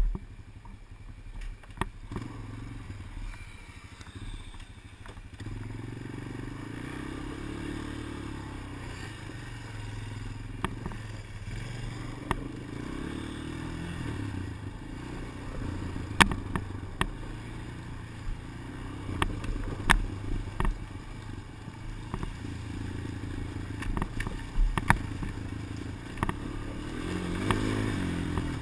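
Engine running, its pitch rising and falling, with sharp irregular clicks every few seconds from the helmet-mounted GoPro Motorsport edition camera itself. The clicking is a fault in the camera that the owner is reporting to GoPro.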